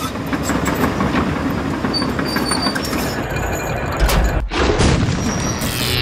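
Loud mechanical rumbling and clattering with many small clicks, and a deep boom about four seconds in.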